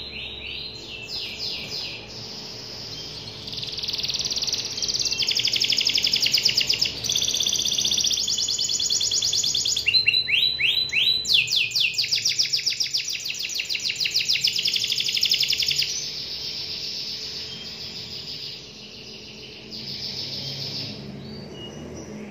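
Domestic canary singing continuously: fast trills and rolling series of rapid notes, with a few quick down-slurred sweeps near the start and again about halfway through. The song is loudest through the middle and softer near the end.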